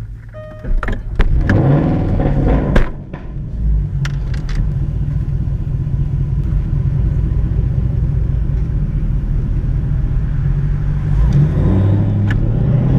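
Straight-piped Jaguar XF exhaust: a few sharp pops and a quick rev in the first three seconds, then a steady low drone under light throttle, rising a little in pitch near the end.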